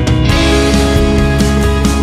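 Background music with a steady beat, growing fuller about a third of a second in.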